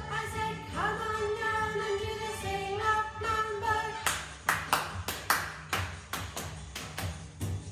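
Music with a sung melody. About four seconds in, the melody gives way to sharp percussive beats, claps or hand percussion, at a steady rhythm of about four a second.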